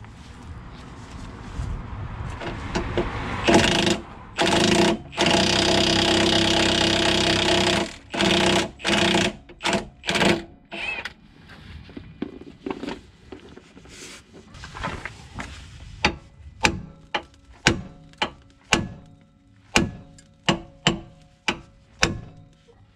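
Cordless impact wrench hammering at bolts under the car: short bursts, then one long run of about two and a half seconds, then several shorter trigger bursts. A string of short sharp clicks follows later on.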